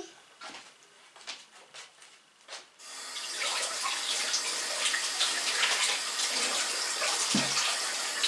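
A few faint clicks, then about three seconds in a kitchen tap is turned on and water runs steadily into the sink.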